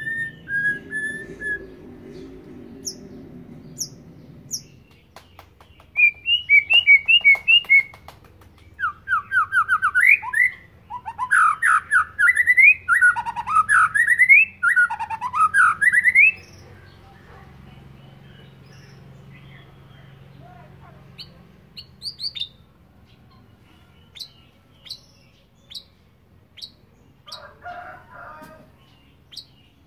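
White-rumped shama singing, a bird still learning its song: a few short chirps, then from about six seconds in a run of loud, rapid whistled phrases sweeping up and down for about ten seconds, followed by scattered sharp high notes.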